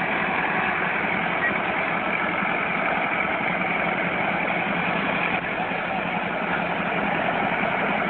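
Tractor engine running steadily while hauling trailers loaded with logs, heard as an even, unbroken drone with vehicle rumble mixed in.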